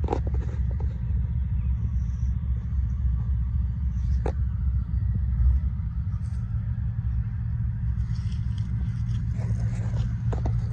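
A steady low rumble, with a few sharp clicks near the start and one about four seconds in.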